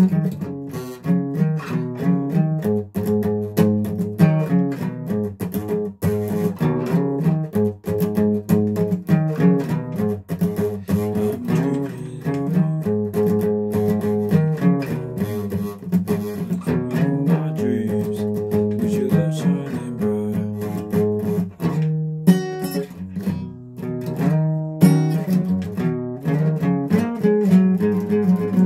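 Guitar being played: a continuous run of picked notes and strummed chords, with two brief breaks near the end.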